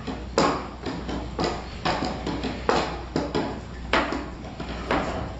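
Wet chewing and lip-smacking with food held in the mouth: about eight sharp smacks at irregular intervals, roughly one every half second to second.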